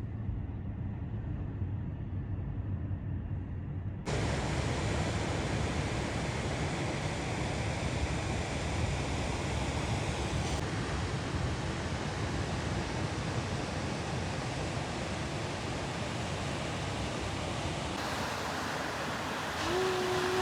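Steady outdoor rushing noise with no distinct events. About four seconds in it abruptly becomes louder and brighter. A brief low tone sounds just before the end.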